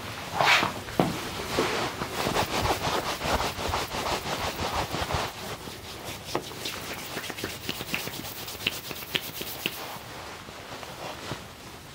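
Hands rubbing and massaging skin in quick, repeated strokes, with a few sharp light clicks in the later part.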